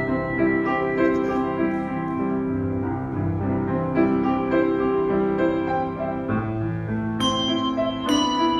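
A set of tuned bells struck one after another in a rhythmic tune, each note ringing on under the next, with louder, brighter strikes near the end.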